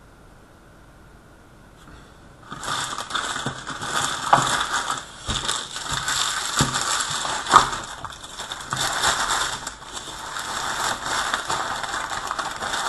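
A stack of trading cards being riffled or thumbed through quickly, a fast run of papery clicks that starts about two and a half seconds in and carries on with a few sharper snaps.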